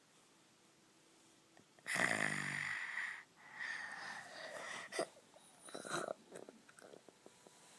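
Snoring: a loud rattling snore about two seconds in, followed by a second, wheezier breath, with a few short clicks later.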